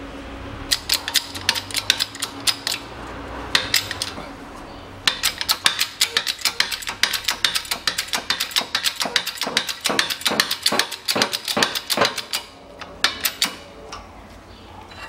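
Shop press forcing a new bearing into an air-conditioning compressor pulley through a steel mandrel: a long run of rapid, sharp metallic clicks, thickest in the second half, that stops about twelve seconds in as the bearing seats.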